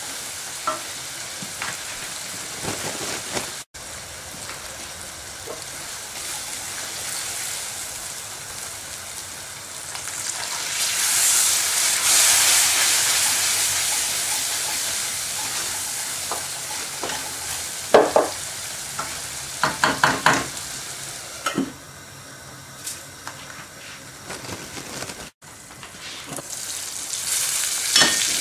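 Curry masala with deer meat sizzling in an aluminium pot over a gas flame, stirred with a wooden spoon. The sizzle swells loudest about eleven seconds in, and a quick run of sharp knocks comes around twenty seconds in, then it quietens before rising again near the end.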